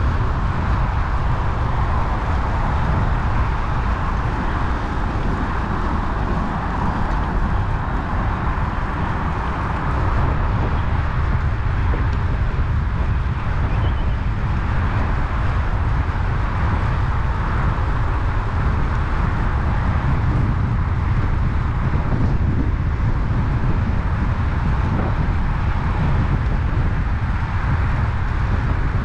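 Steady wind rumble on the microphone over a constant hiss of road traffic.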